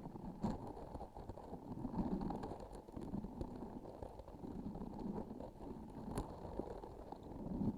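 Sticky, filled transparent object pressed and squeezed close to the microphone: soft, muffled sticky swells about once a second, with a few sharp clicks.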